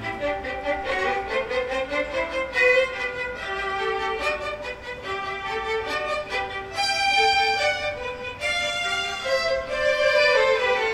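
An orchestra playing a classical piece, with violins carrying the melody.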